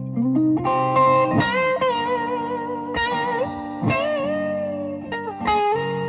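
Gibson ES-335 semi-hollow electric guitar playing a lead line of picked single notes, with string bends and wide vibrato on the held notes.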